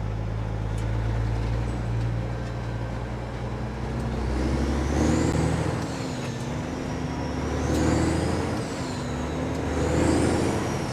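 Kenworth W900 diesel truck engine pulling a loaded trailer, droning steadily and then revving up and dropping back three times as the gears are shifted, with a turbo whistle rising and falling along with the revs.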